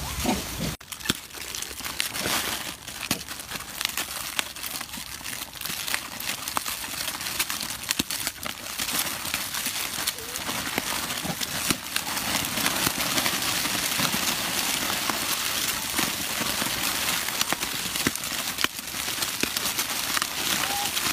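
Plastic snack wrappers crinkling and crackling as a troop of macaques tears at and eats packaged snacks: a continuous rustle dotted with many small crackles, setting in suddenly about a second in.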